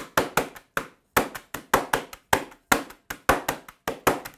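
A drumstick and a wooden rolling pin drumming on a sandwich bag of bourbon biscuits and Weetabix on a tea towel, crushing them to crumbs. The strikes are sharp and even, about five a second, in a steady drum beat.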